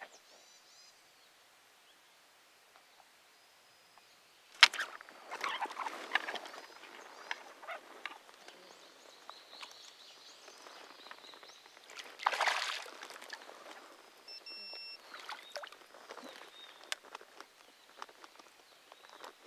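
Faint bird chirps, then about four and a half seconds in a sudden sharp splash as the angler strikes a small bite, followed by irregular splashing and sloshing of water as a hooked herabuna (crucian carp) is played at the surface, with another heavy burst of splashing about twelve seconds in.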